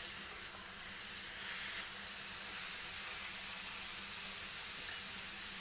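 Grated beetroot frying in ghee in a pan over a high gas flame: a steady sizzle as its moisture cooks off.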